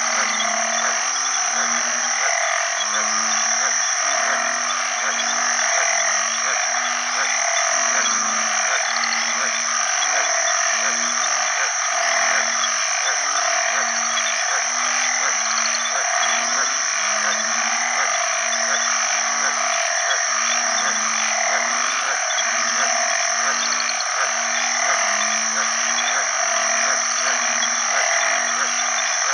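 Male banded bullfrogs (Asian painted frogs) giving their low, short, repeated mating calls. Several callers at slightly different pitches overlap, over a dense, steady chorus of other frogs.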